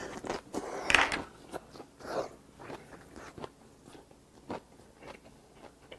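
Close-miked eating: a bite about a second in, then chewing and crunching of grilled pork belly wrapped in kimchi, heard as a string of short wet clicks.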